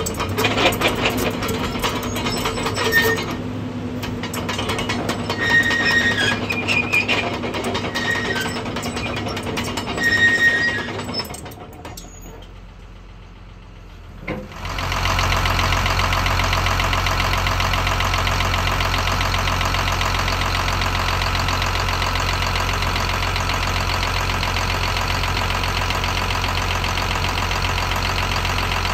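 Caterpillar 320L excavator's diesel engine running, with a few short high chirps over it, falling quieter for a few seconds near the middle. About halfway through it comes in louder and very steady, idling, heard from the open engine bay.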